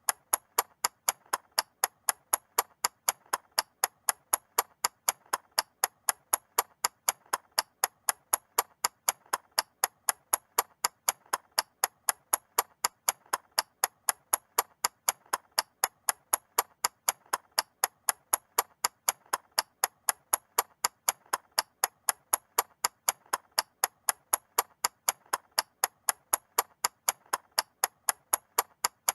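Mechanical clock ticking in a fast, even, unbroken rhythm of sharp clicks.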